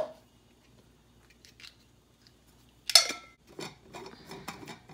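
A stainless steel travel tumbler clinks against its lid once about three seconds in, with a brief metallic ring. Light clicks and scraping follow as the lid is fitted onto the tumbler.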